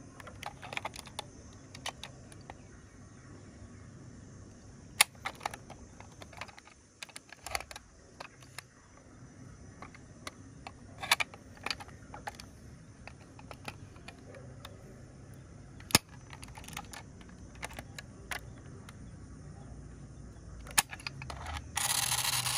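Small scattered clicks and taps as a die-cast toy ambulance is handled and its doors are worked, with a few sharper clicks among them. Near the end a steady rubbing noise starts.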